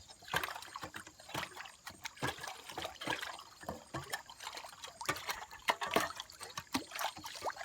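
Spring water trickling and splashing irregularly into a freshly dug-out watering hole.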